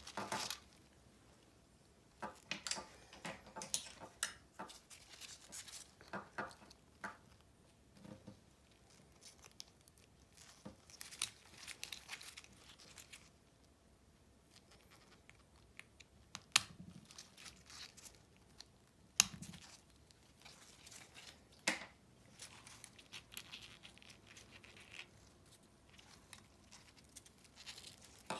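Intermittent handling noises from a headset repair: short rustling and tearing sounds with a few sharp clicks of small parts and tools.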